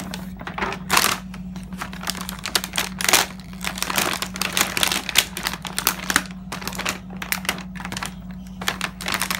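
Clear plastic toy packaging crinkling and crackling as hands tear it open and handle it, in quick irregular crackles. A steady low hum runs underneath.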